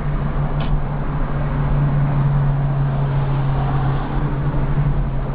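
Car engine and tyre noise heard inside a moving car's cabin at highway speed: a steady low drone with an even hum.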